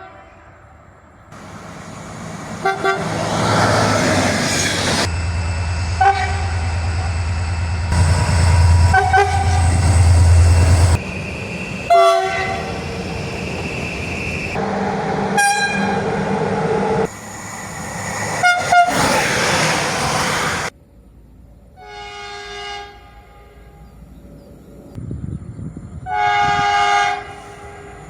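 Train horns over passing trains. A train passes with its noise and a low hum, and short horn toots sound over it several times. After that two separate horn blasts sound, a shorter, quieter one and then a louder one of about a second near the end.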